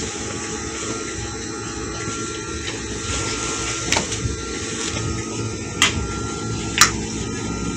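Electric sewing machine running steadily as it stitches a seam, with a few sharp clicks near the middle and end.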